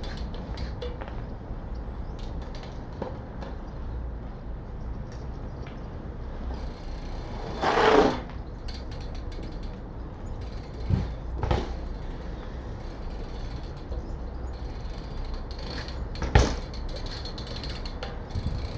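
Downhill mountain bike being worked by hand to show its brakes and suspension: scattered mechanical clicks and creaks. A louder noise of about half a second comes about eight seconds in, two smaller ones follow around eleven seconds, and a sharp knock comes near the end.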